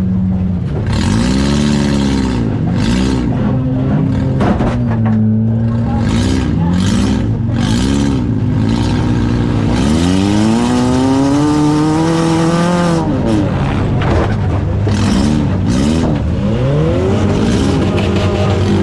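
Compact demolition derby car's engine revving up and down over and over, with one longer climb in revs about halfway through, heard from inside the stripped, windshield-less cabin. A sharp bang about four and a half seconds in.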